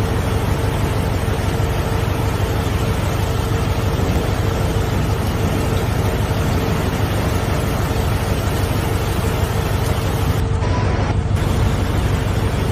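Loud, steady rush of flash floodwater pouring down a street, with a faint steady hum underneath.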